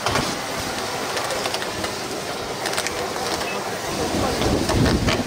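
Lithium-ion battery pack burning in an open steel container: a steady rush of flame with a few crackles about halfway through, growing louder near the end.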